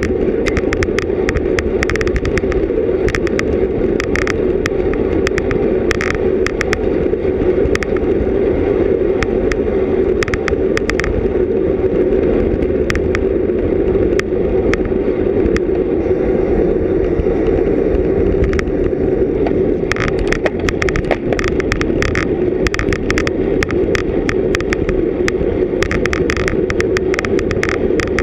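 Steady loud wind and road rush heard through a GoPro Hero 3+ camera housing while riding a road bicycle at race pace, with frequent irregular clicks and rattles, thickest over the last few seconds.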